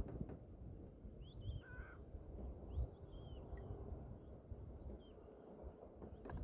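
Gulls calling: a few short cries, about one and a half seconds in and again about three seconds in, over a steady low rumble.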